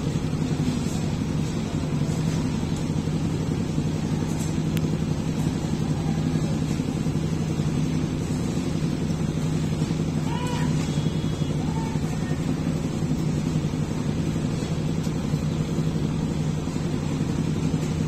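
A steady low hum that holds one pitch, with a few faint brief higher sounds about ten seconds in.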